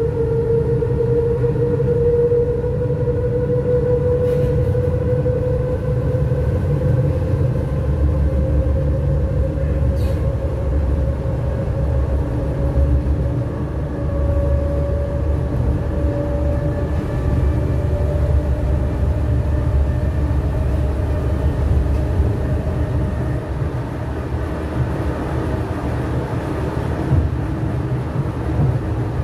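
Berlin S-Bahn class 485 electric multiple unit running, heard from inside the passenger car. A steady rumble of the train on the track carries a whine that slowly rises in pitch over the first half and then holds level.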